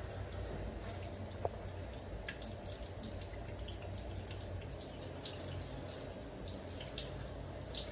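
Water spraying from a handheld shower head, splashing and dripping as a wet baby monkey is rinsed, echoing in a small tiled bathroom. One sharp click about one and a half seconds in.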